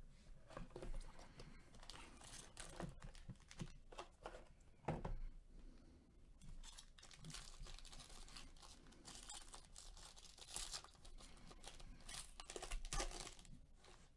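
Foil wrapper of a sealed trading-card pack crinkling and tearing as it is opened by hand, in faint scattered crackles. A louder crackle comes about five seconds in, and another burst of louder crackles near the end.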